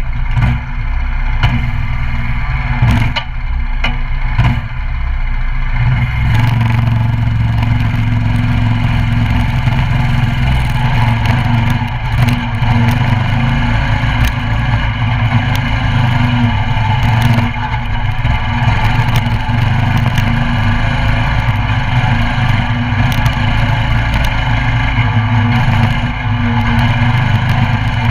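Coleman CT200U mini bike's 196cc single-cylinder engine running while the bike is ridden. Sharp knocks and rattles come through during the first six seconds, and it runs more evenly after that.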